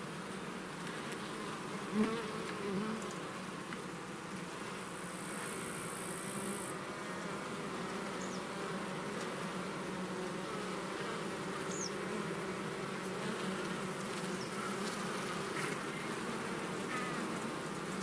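Honey bees humming steadily on the open top bars of a hive, the dense buzz of a whole colony. There is a single sharp click about two seconds in.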